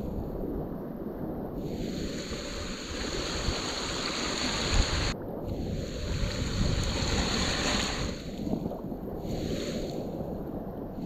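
Surf and water washing around the microphone, with wind noise, a steady rushing that goes dull several times, abruptly about five seconds in.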